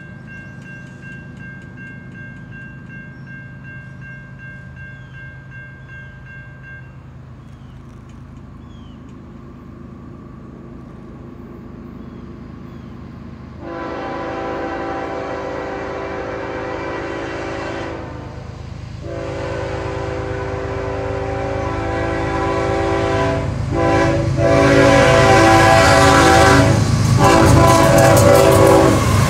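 A grade-crossing bell rings for the first several seconds and then stops. Norfolk Southern GE ES44AC locomotive 8119 then sounds its horn in the crossing signal: long, long, short, long. Meanwhile its diesel engine and the rail noise grow steadily louder as it approaches and passes.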